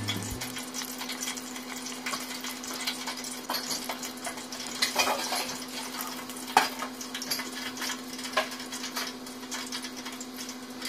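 Tempura- and panko-coated sushi roll deep frying in hot oil: a steady crackling sizzle with scattered louder pops, over a faint steady hum.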